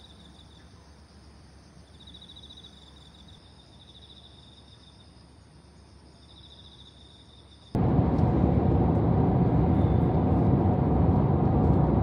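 Quiet outdoor background with faint, high, pulsing insect chirps in short runs. About three-quarters of the way in it gives way abruptly to a loud, steady rushing noise.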